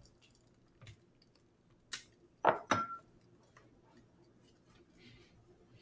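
Scattered small knocks and clinks of kitchen things being handled on a counter, the loudest two coming about two and a half seconds in, one with a short ring.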